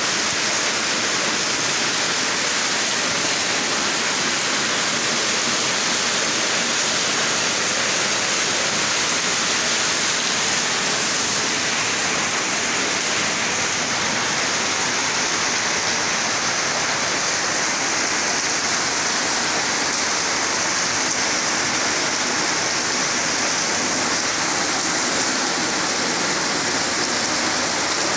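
Rain pouring steadily: an even, unbroken hiss of drops hitting the street and a wet ledge just outside the window.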